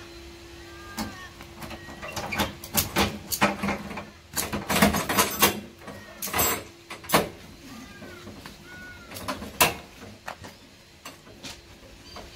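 Tie-down strap and rope being worked against a ute's metal tray: a run of sharp clicks and rasps, densest a few seconds in and thinning out near the end.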